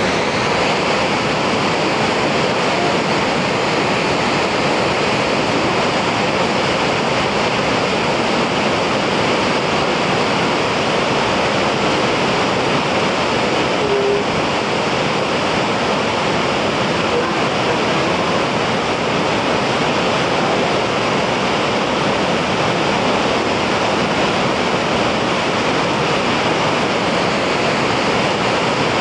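Waterfall pouring in a wide curtain over a rock ledge and crashing into the pool below: a loud, steady rush of falling water.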